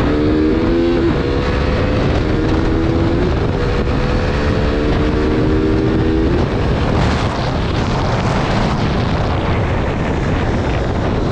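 KTM RC 390's single-cylinder engine running at speed with heavy wind noise on the microphone. The engine note rises and steps up in pitch over the first few seconds, holds steady, then fades under the wind about six and a half seconds in.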